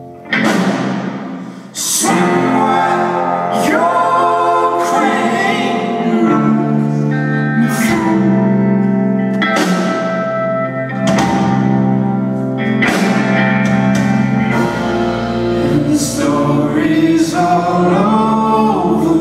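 Live band playing with a sung vocal line over sustained chords, loud drum and cymbal crashes every second or two.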